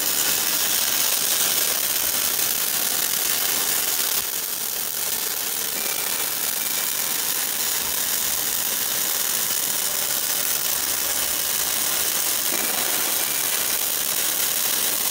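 Automatic pipe-flange welding machine's arc welding a flange onto the end of a steel pipe: a loud, steady hiss with no break, dipping slightly about four seconds in.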